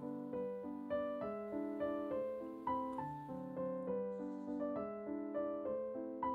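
Background piano music: a gentle melody of single notes over held chords, a new note about three times a second.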